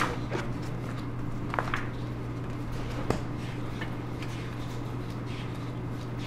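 Paper pages of a bound bill being leafed through by hand: scattered light clicks and ticks of page edges and handling, the sharpest about three seconds in, over a steady low room hum.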